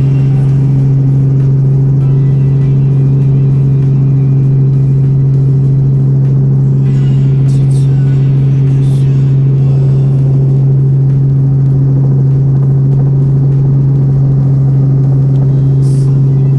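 Robinson R44 helicopter running in steady flight: a loud, unchanging low drone with a few evenly spaced overtones.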